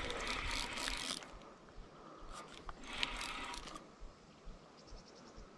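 Fishing reel working in three short spells of mechanical whirring while a hooked carp is played in.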